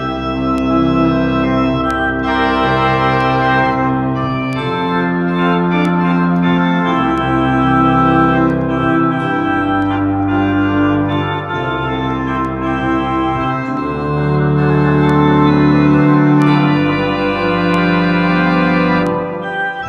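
Home electronic organ playing a hymn: full sustained chords over held bass notes, the harmony changing every second or two, with a short break between phrases near the end.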